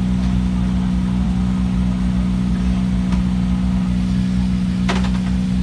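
Rally car engine running at a steady speed, holding one constant note, with a single sharp click about five seconds in.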